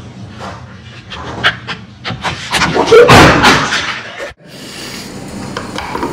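A few light taps, then a loud clatter about three seconds in as a tablet knocked off a kitchen counter lands on a tile floor. The sound cuts off suddenly, leaving a quieter steady low hum.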